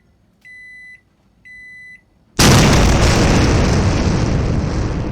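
A microwave oven beeping twice, each a steady high half-second beep, a second apart. About a second later comes a sudden, very loud explosion boom that dies away slowly over several seconds.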